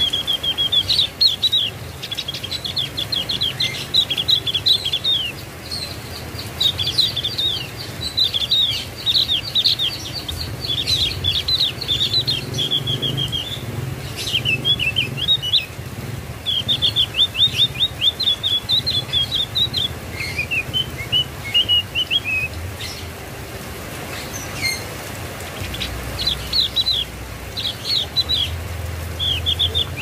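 Javan grey-throated white-eye (opior jawa) singing: long, rapid chattering phrases of short high notes, with a lower phrase about two-thirds through and a brief lull before the song picks up again.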